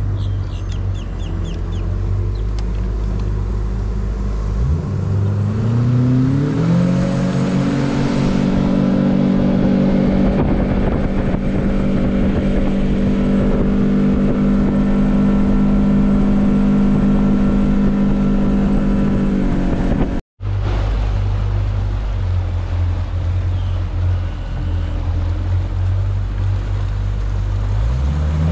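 Outboard motor on a bass boat running low, then throttled up: its pitch climbs over about three seconds and holds steady at speed. After a sudden break about twenty seconds in it runs at a lower steady pace, then starts climbing again near the end.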